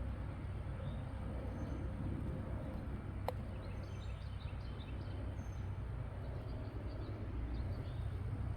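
Outdoor garden ambience: a steady low rumble with faint, scattered bird chirps, and a single sharp click a little over three seconds in.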